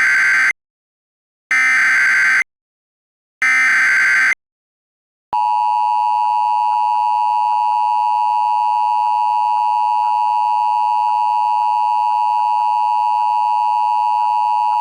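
Emergency Alert System header: three short bursts of screechy data tones about a second apart, then the steady two-tone EAS attention signal sounding for about ten seconds.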